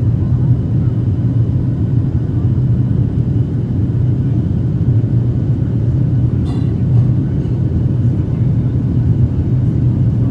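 Cabin noise of a Boeing 737-800 climbing out after takeoff, heard from a window seat over the wing. The two CFM56-7B engines and the air rushing past the fuselage make a steady low rumble. A brief click comes about six and a half seconds in.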